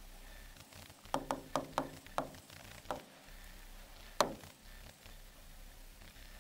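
Stylus tapping on an interactive display's screen: a quick run of about six light taps while writing, then one louder single tap about four seconds in.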